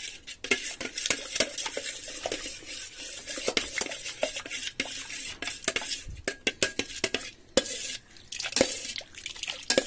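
Steel spoon stirring curd mixed with a little milk in a stainless steel bowl, with quick irregular clinks and scrapes of metal on metal: the starter curd is being beaten smooth to break up its lumps.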